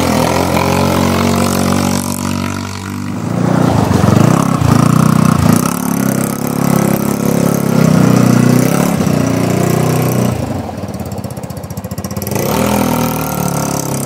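A 150cc American Sportworks Carbide dune buggy with a gutted exhaust drives about, its engine revving up and easing off again and again. The engine sound drops away for a moment about ten seconds in, then comes back louder near the end.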